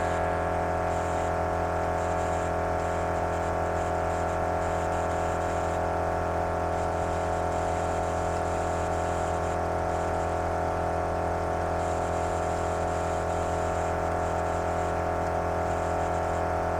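MORRflate dual air compressor running steadily with an even hum under load, filling tires partway through inflation toward 38 PSI.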